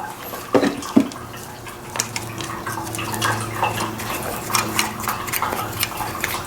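Metal brake parts and tools clinking as they are handled: two sharper knocks about half a second apart near the start, then a run of light clicks and taps, over a faint steady hum.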